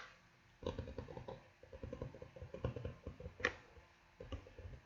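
Rapid light tapping and clicking on a makeup product's case, several taps a second, with a sharper click about three and a half seconds in.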